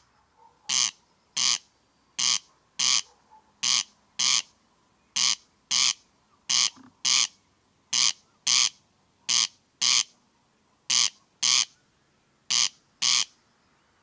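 Corncrake (Crex crex) calling: its rattling two-stroke 'crex crex', short rasps in pairs about half a second apart, each pair repeated steadily about every one and a half seconds.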